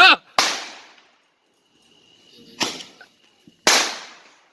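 Consumer fireworks going off: a warbling whistle cuts off at the very start, then three sharp bangs follow, one just after the start, one past the middle and one near the end, each fading out over about half a second.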